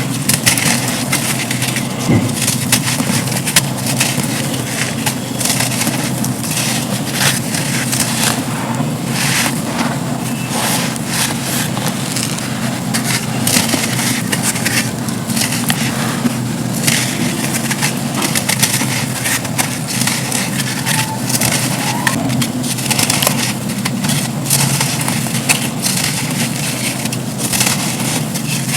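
Dry black sand slabs being crumbled, a continuous run of crisp crunches and crackles.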